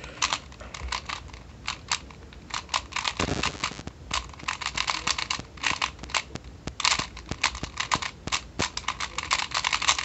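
Rubik's Connected smart cube being speedsolved: quick plastic clicks and clacks of its layers being turned, in rapid irregular runs.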